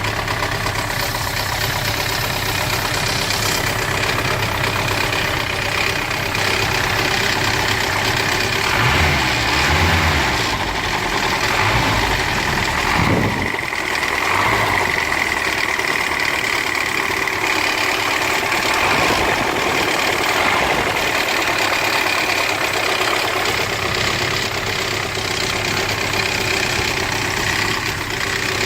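Mercedes-Benz M115 four-cylinder petrol engine running steadily, with the timing chain noise it is being recorded for.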